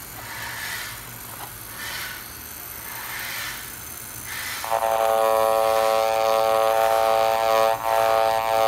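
CNC Q5 rotary tattoo pen running: a loud, steady electric buzz that starts about halfway through, drops out for a moment near the end, then runs on until it cuts off. Before it starts there is soft handling noise from the cardboard cartridge box.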